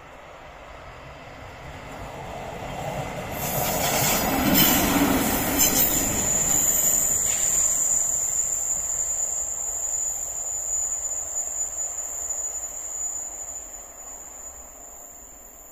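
A ČD class 814 Regionova diesel railcar passes by. It grows louder to a peak about four seconds in, with a few clicks, then fades as it pulls away. About six seconds in a steady high wheel squeal starts as it rounds the curve, and it lasts while the train draws off.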